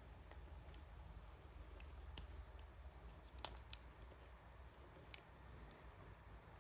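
Faint, scattered small clicks of plastic wiring-harness connectors and wires being handled, over a low steady hum; the sharpest click comes about two seconds in.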